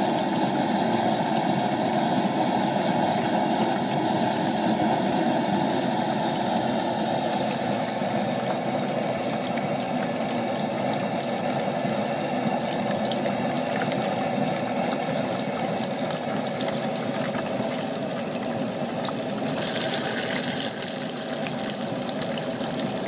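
Propane turkey fryer running: a steady burner noise with the oil bubbling hard around a frying turkey. A brief hiss comes about twenty seconds in.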